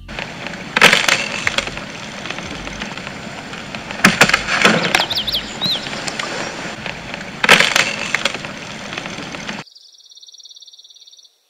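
An aspen tree, gnawed through by a beaver, cracking and crashing down through the branches. Three loud cracks come about a second in, about four seconds in and near eight seconds, over continuous rustling of leaves and limbs, and the sound cuts off suddenly near the end.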